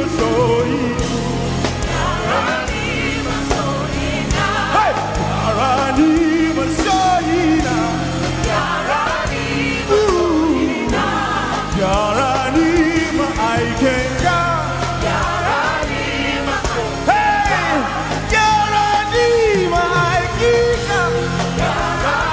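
Live gospel worship music: a lead voice singing a slow, sliding melody over keyboard and bass, with a choir or congregation singing along.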